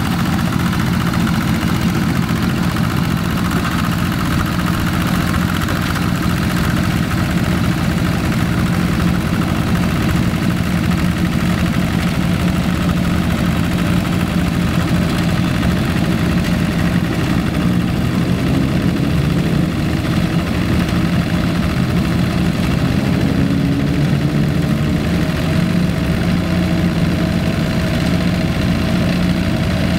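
Yanmar TF85 hand tractors' single-cylinder diesel engines running steadily under load while ploughing wet paddy soil. From about two-thirds of the way through, the engine pitch shifts a little.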